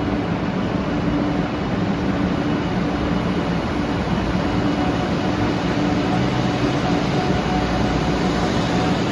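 A 500 series Shinkansen pulling away from the platform under power, its Toshiba GTO-VVVF inverter still in original, unrefurbished form. A steady rumble carries several held tones, a higher tone joins about halfway through, and it grows slightly louder as the train gathers speed.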